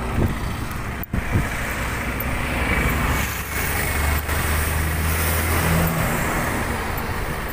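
Steady road-traffic noise with a low rumble, a vehicle engine swelling louder around the middle, and a brief knock about a second in.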